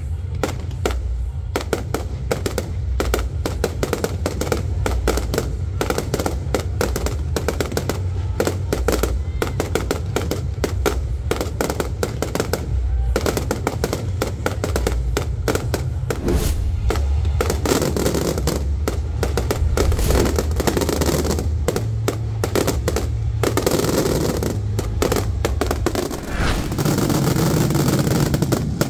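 Fireworks display going off in rapid succession, many sharp bangs and crackles a second with hardly a pause, over music with a steady bass. The bangs grow denser and noisier near the end.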